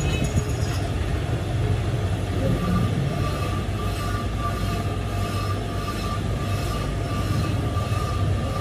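Belt-driven metal lathe running, with a steady low hum from its motor and drive. From about three seconds in a faint, steady high whine joins it.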